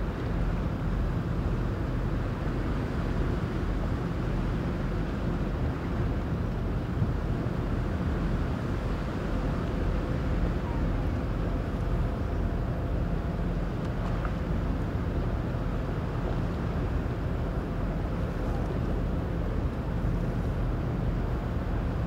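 Low, steady rumble of the MSC Grandiosa cruise ship's engines as it moves slowly past, with a faint steady hum running through it.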